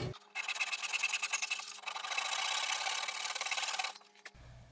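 A flat metal hand tool worked rapidly back and forth across wood, trimming the overhanging end of a plywood boat-hull strip flush. The rasping runs without a break and stops about four seconds in.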